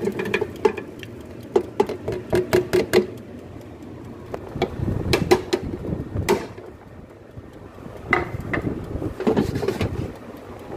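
Air fryer basket being loaded and handled: a quick run of sharp clicks and knocks in the first three seconds, then a few scattered knocks and clunks of the basket drawer.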